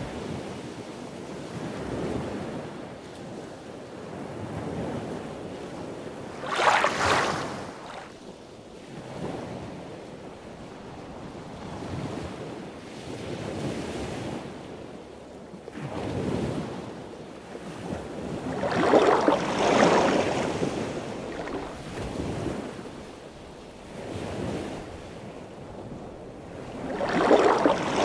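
Rushing, surf-like noise that swells and fades every couple of seconds, with three much louder swells.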